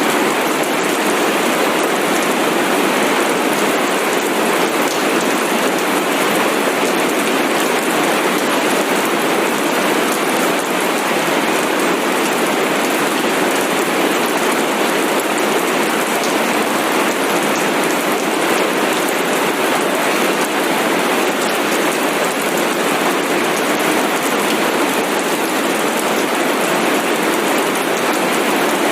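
Steady, unchanging rain sound: a dense even hiss of rain falling on a surface.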